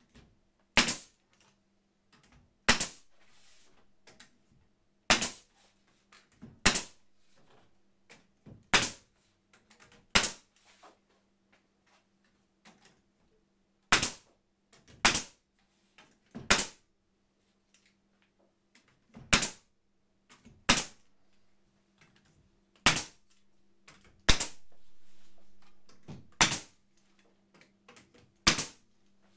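Pneumatic crown stapler driving 1/4-inch crown, 1-1/4-inch staples through a steel drywall corner bead: a sharp shot about every one to two seconds, about sixteen in all, with a pause of about three seconds near the middle.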